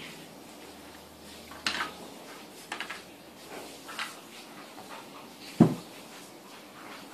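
Dry bubliki being bitten and chewed in a few short separate crunches, then one much louder short sound about five and a half seconds in.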